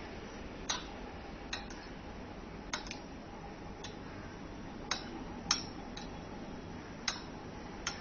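Steel spoon clinking against a ceramic bowl while stirring chicken pieces in a wet marinade: about ten sharp, short taps at uneven intervals.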